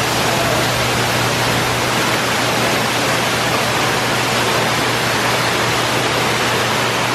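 Waterfall spilling over rocks in a conservatory's tropical house: a steady, even rush of falling water.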